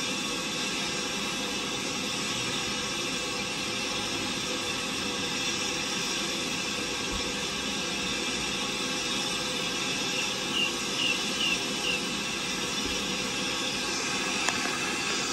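BR Standard Class 5 steam locomotive giving off a steady hiss of steam. Four short high chirps come close together about two-thirds of the way through, and a single sharp click near the end.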